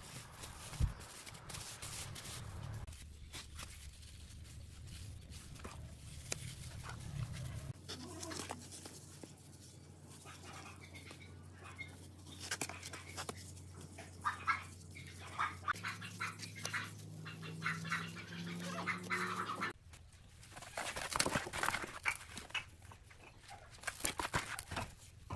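A steel trowel spreading, scraping and patting wet cement mortar, with many short scrapes and taps, and trowelfuls scooped from a plastic basin.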